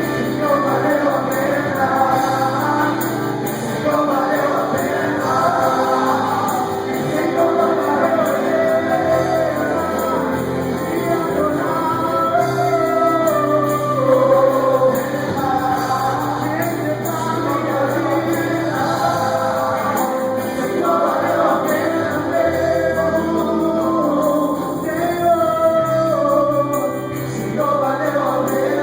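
Live gospel worship song in Portuguese: singers, several voices together, over a band, with the melody running continuously and no pauses.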